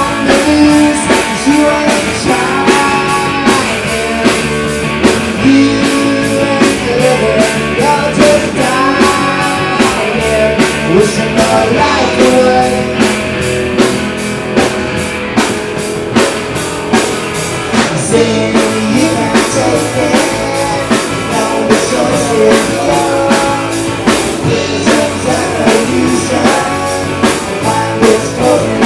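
Rock band playing live: electric guitars, bass and drum kit, with a steady, driving drum beat.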